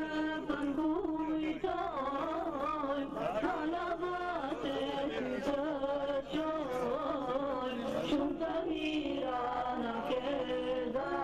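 Middle Eastern-style chanted singing: an ornamented voice line that bends and wavers continuously, with no pauses.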